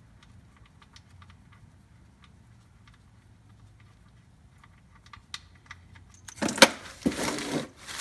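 Light scattered clicks of hand tools working at the oil drain plug under the car. About six seconds in comes a louder stretch of clattering handling noise with one sharp click.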